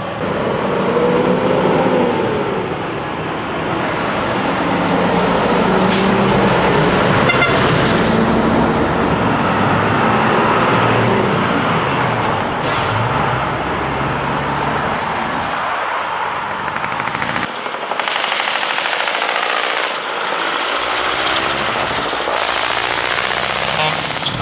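Decorated trucks' diesel engines running and revving as they pull away, several at once, their pitches rising and falling over one another.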